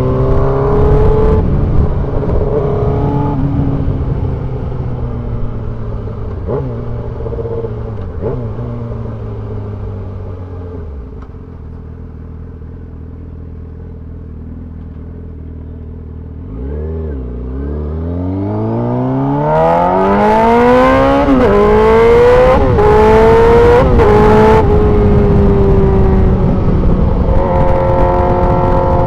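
Yamaha R6 sport bike's inline-four with a GPR aftermarket exhaust: the engine note falls as the bike slows to idle, idles for several seconds, then revs hard pulling away, rising through the gears with three quick upshifts, and settles into steady cruising.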